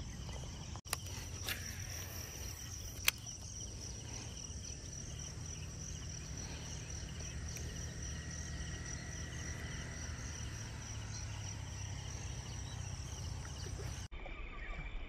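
Insects chirping steadily in the background, a high pulsing drone, over a low rumble. Two sharp clicks come about one and three seconds in.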